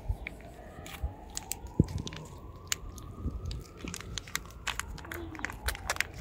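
A cat eating wet cat food at close range: irregular, quick clicks of chewing and licking.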